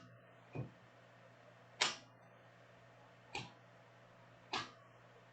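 Four short, sharp clicks about a second and a half apart from trading cards being handled and flipped one by one.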